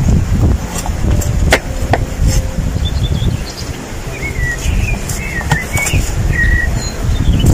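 Small birds chirping in short, repeated calls over a loud, steady low rumble, with a few sharp clicks of a steel knife against a wooden cutting board as roasted lamb is carved.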